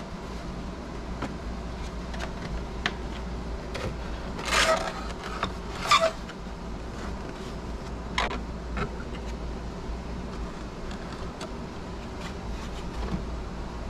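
Thin Lexan RC car body being handled in a hobby spray booth, with light plastic rustles and clicks. There are two louder knocks and scrapes about four and a half and six seconds in, the second as the body is set down on the booth floor. A steady low hum runs underneath.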